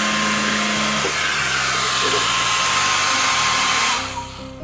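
Handheld hair dryer running, a steady rushing blow with a steady whine in it, cutting off about four seconds in.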